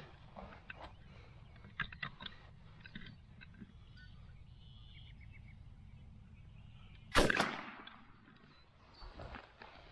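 A single .410 shotgun shot fired about seven seconds in: one sharp blast trailing off in a short echo. Before it, faint scattered clicks and rustling.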